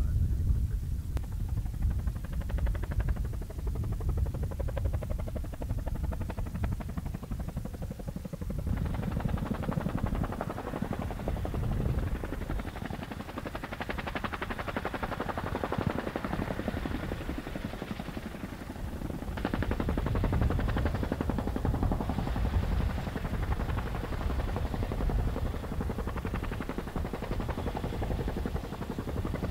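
Boeing CH-47 Chinook tandem-rotor helicopter flying overhead with a heavy underslung load, its rotor blades beating in a rapid, steady chop. About nine seconds in, the sound suddenly turns fuller and brighter.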